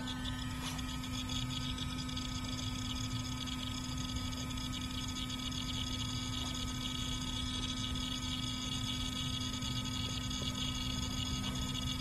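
Navac 4 CFM cordless vacuum pump running with a steady hum while pulling a deep finishing vacuum, at about 390 microns, on an air-conditioning system's lines.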